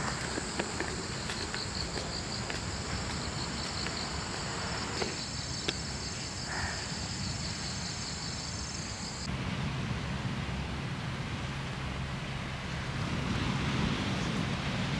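Steady high-pitched insect trill with a fine, fast pulsing, which cuts off abruptly about nine seconds in. After it comes a low steady hum and a rush of noise that grows louder near the end.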